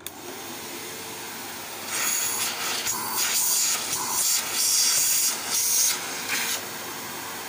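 Modena canister vacuum cleaner switched on after a motor service, running steadily. From about two seconds in, the rush of air grows louder and surges up and down in a series of swells as the hose inlet is worked by hand, then settles back to the steady running sound near the end.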